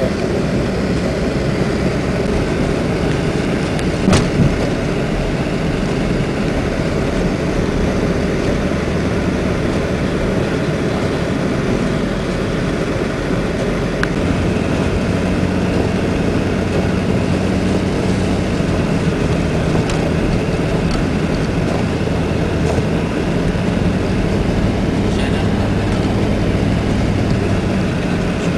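A van driving on a snowy road: a steady low engine drone under an even rush of tyre and wind noise, with a single short knock about four seconds in.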